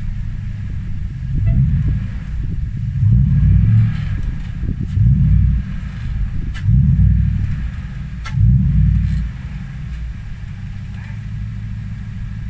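Toyota Hilux engine running low and steady, rising in about five short bursts of throttle as the heavy truck creeps over an aluminium canopy. A couple of sharp clicks come in between the bursts.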